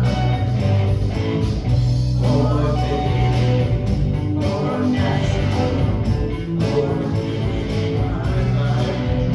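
Worship band playing a contemporary song with guitar and bass and a steady beat.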